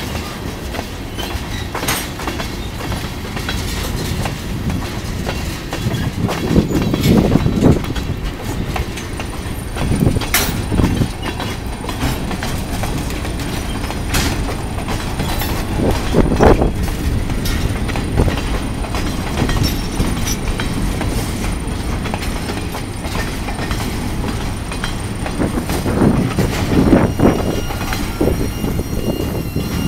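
CSX freight train's tank cars and boxcars rolling past close by, their wheels clattering over the rail joints, with heavier clunks every few seconds. A thin, high squeal from the wheels joins in about a third of the way through.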